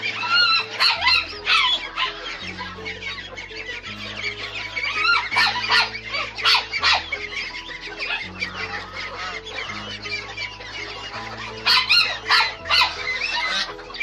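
Caged laying hens clucking and squawking, mixed with ducks calling, in frequent overlapping bursts that are loudest around the middle and near the end. Background music with slow held low notes runs underneath.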